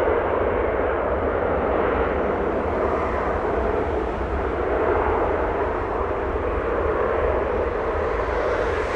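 Jet airliner engines running with a steady, loud roar that has no clear whine in it.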